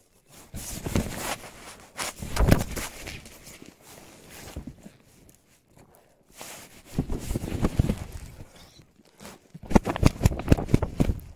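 Close rustling and scraping with sharp clicks and knocks, in three bouts, the last a dense run of quick clicks and knocks near the end that is the loudest.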